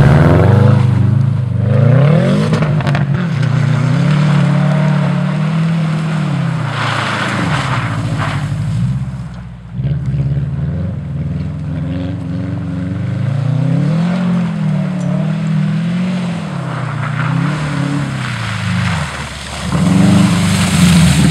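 2012 Subaru WRX's turbocharged 2.5-litre flat-four engine revving up and down repeatedly as the car's wheels spin and churn through deep snow. The engine pitch swings up and falls away several times, with a brief drop about halfway through.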